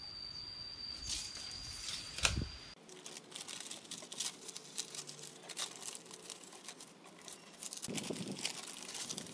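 Sheets of newspaper rustling and crinkling as they are spread flat by hand, in many short crackles. A single sharp knock comes about two seconds in, before the paper handling starts.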